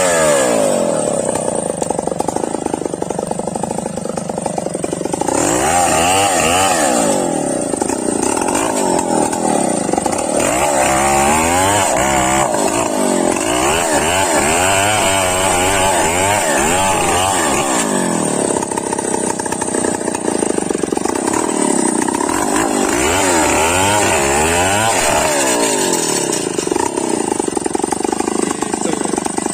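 Stihl 070 two-stroke chainsaw running at high revs while cutting into an oil palm trunk, its engine pitch rising and falling repeatedly as the chain bites and clears.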